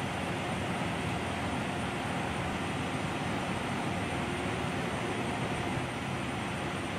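Steady vehicle noise, an even rumble and hiss with no distinct events.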